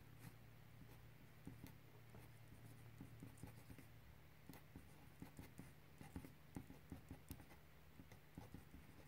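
Faint scratching and ticking of a pen on paper as Chinese characters are written stroke by stroke: many short, quick strokes, over a steady low hum.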